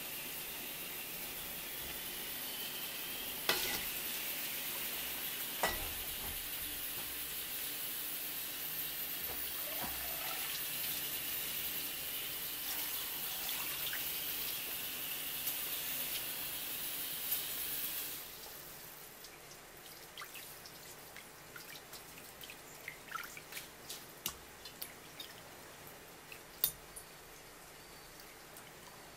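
Kitchen tap water running through a flexible metal spout into a stainless steel bowl as tuna eyes are rinsed. About 18 seconds in the steady rush drops away to quieter splashing and dripping as a hand rubs the eyes clean under the water.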